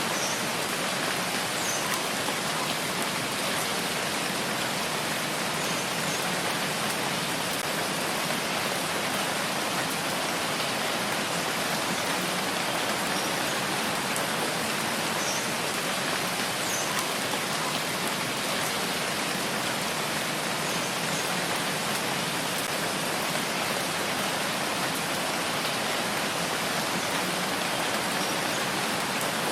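Steady, even rain falling, with faint scattered drops ticking.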